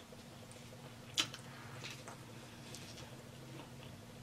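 Faint close-up eating sounds: soft chewing and wet mouth noises, with a sharper click about a second in.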